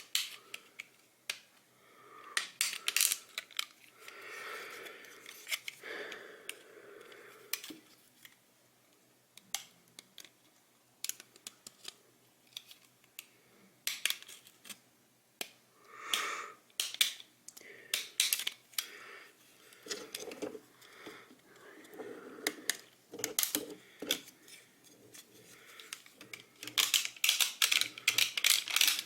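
Hand tool cutting and trimming the plastic cover of a computer mouse to widen the scroll-wheel opening: irregular sharp snips and clicks with short scraping stretches, coming thick and fast near the end.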